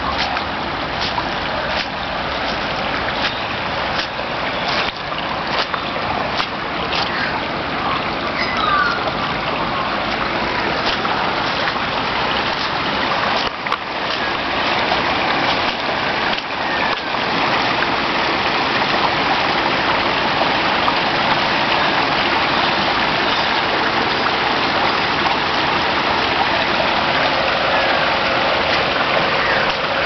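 Water from a burst water main gushing up through the road and rushing across the asphalt, a steady loud noise of running and splashing water that grows a little louder about halfway through. A few bird chirps sound over it about eight seconds in.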